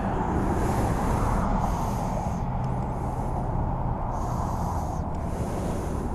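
Steady low engine rumble of motor vehicles, with a high hiss that comes and goes.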